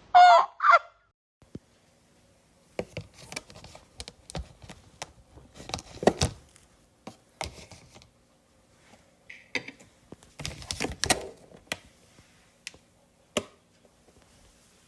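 A loud, pitched call in two short parts at the start, then a run of scattered knocks, thuds and clicks.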